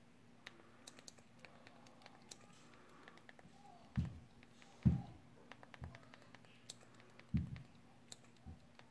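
Scattered light clicks from navigating and selecting keys on a Fire TV on-screen keyboard with the remote. Midway through there are four soft, low thumps.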